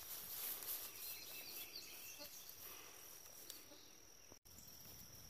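Quiet outdoor ambience: a steady high-pitched insect drone, with faint rustling in the grass and a few short chirps. The sound cuts out for an instant about four seconds in.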